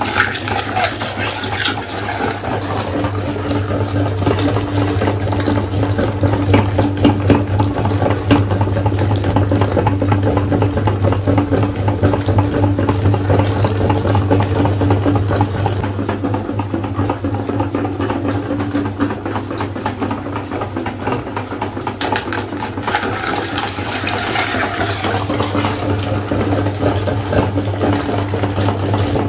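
Meat grinder running with a steady motor hum while it crushes whole eggs: a constant crackle of shells breaking and wet squelching as liquid egg is forced through the plate.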